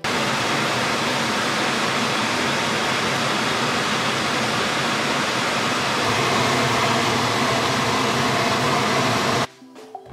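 Meat sizzling as it fries in a hot nonstick pan, a steady loud hiss that grows a little louder about six seconds in and cuts off suddenly near the end.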